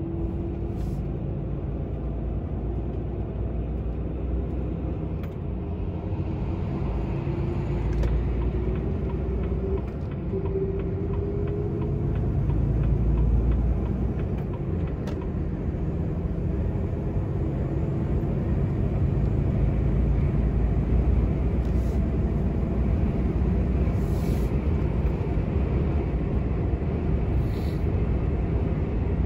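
Volvo FH16 750's 16-litre straight-six diesel heard from inside the cab, running with a low rumble as the truck accelerates. A whine rises in pitch from about six to twelve seconds in, with a brief dip about ten seconds in, before the engine settles into steady cruising with road noise.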